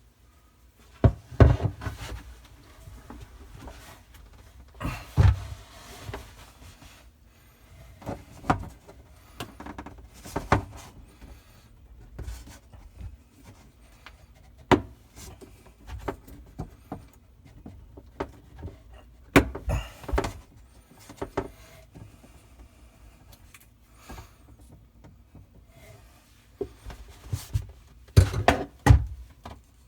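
Handling noise in a cramped under-sink cabinet: irregular knocks and bumps with rubbing between them, and a quick cluster of knocks near the end.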